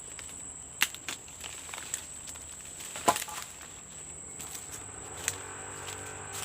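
Insects, likely crickets, give a steady high trill, broken by five sharp knocks or snaps, the loudest about three seconds in.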